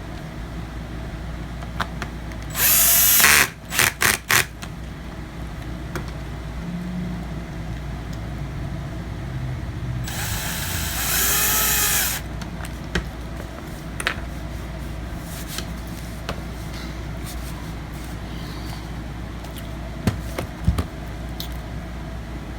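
Electric screwdriver driving the laptop's case screws: a short run about three seconds in, then three quick blips, and a longer run of about two seconds near the middle.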